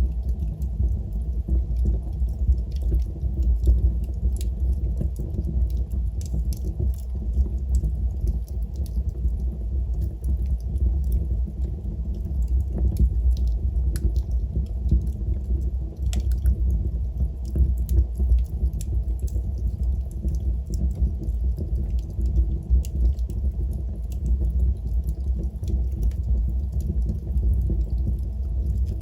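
Wood fire burning in a fireplace: a steady low rumble with scattered small crackles and pops.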